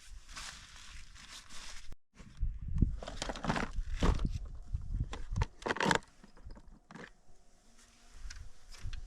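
Irregular crunching and rustling, loudest between about two and six seconds in, then fading to a few softer crackles.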